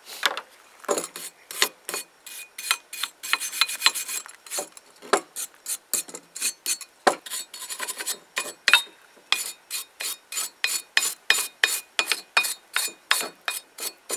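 Stiff brush scrubbing a cast-iron pie iron on a wooden table, brisk rasping back-and-forth strokes about four a second, cleaning out food left from cooking.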